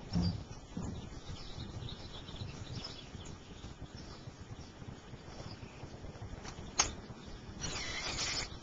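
Quiet backyard ambience with faint, scattered high bird chirps. There is a low thump at the start, a single sharp click near the end, and then a short burst of rustling hiss.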